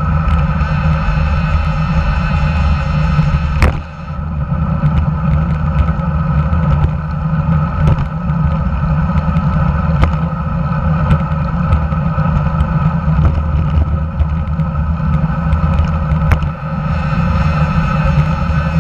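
Steady rush of wind and road noise picked up by a camera mounted below a road bike's handlebars while riding, with a few sharp knocks from jolts in the road.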